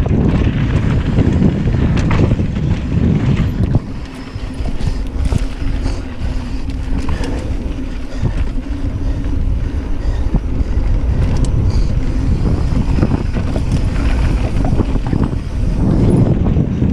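Wind buffeting the microphone and knobby tyres rumbling over a dirt trail as a mountain bike descends at speed, with scattered clicks and rattles from the bike. The rush eases for a while a few seconds in and builds again near the end.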